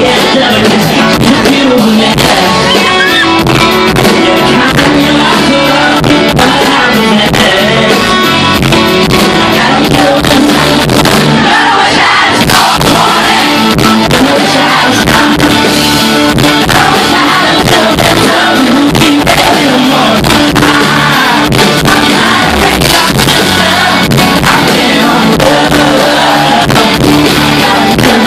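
Live band performing a country-pop song: a male lead vocal sung over strummed acoustic guitar and drum kit, steadily very loud as heard from the audience.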